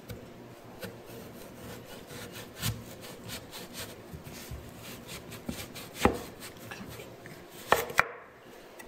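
A cleaver working down through a whole peeled taro root on a wooden cutting board: a run of small clicks and scrapes as the blade cuts through the dense root, with a few louder sharp knocks, the loudest two close together near the end as the blade reaches the board.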